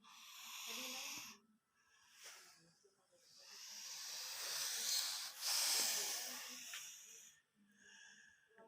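A sleeping person snoring, each breath a hissing wheeze: a shorter one in the first second or so, then a long one about three seconds in that swells and fades.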